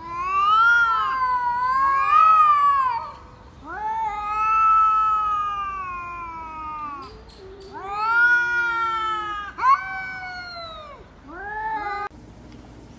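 A cat yowling: about five long, drawn-out, wavering calls in a row, rising and falling in pitch. The yowling cuts off abruptly near the end.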